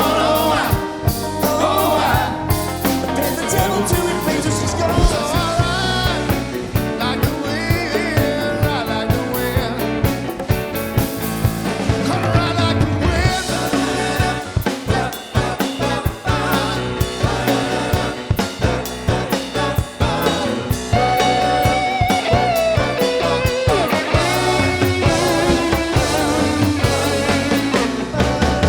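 Rock band playing a 1970s album-rock cover song with sung vocals, drum kit and guitar.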